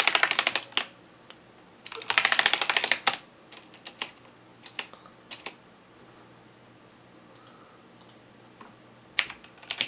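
Budget mechanical keyboard with clicky Outemu Blue switches being pressed during a key test: two dense runs of rapid keystrokes, each about a second long, in the first three seconds, then single key presses every second or so, and a quick cluster of presses near the end.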